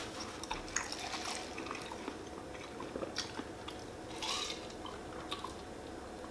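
Soft eating mouth sounds of chewing, then small sips and swallows from a cup of drink, with faint scattered clicks.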